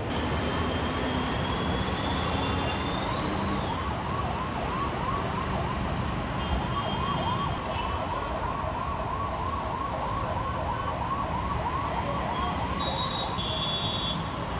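An emergency vehicle's siren in a fast yelp, about two to three rising-and-falling sweeps a second, over steady road-traffic noise.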